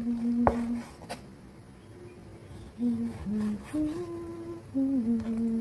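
A person humming a slow tune in long held notes, with two sharp knocks of a chef's knife on a wooden cutting board within the first second or so.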